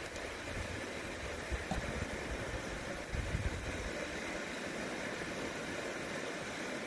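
Steady outdoor hiss, with short low rumbles of wind on the microphone about three seconds in.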